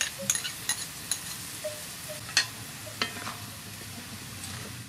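Chicken pieces sizzling in oil in a wide metal wok, with irregular sharp pops and crackles that are busiest in the first second or so, as a wooden spatula stirs them.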